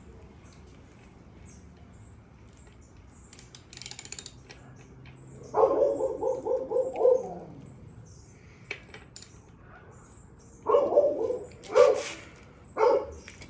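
A dog barking: a quick run of barks about halfway through, then several single barks near the end. Light metallic clinks of tools between them.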